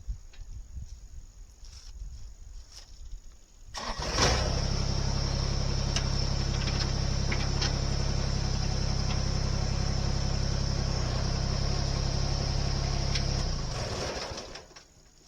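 An engine starts about four seconds in, runs steadily at an even speed for about ten seconds, then is shut off and winds down near the end.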